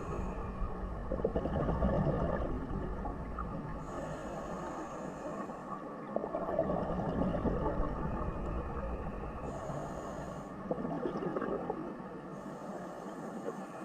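Underwater recording of unexplained 'strange sounds' (suara aneh): a steady low hum with irregular swells of rough, low noise, three louder stretches.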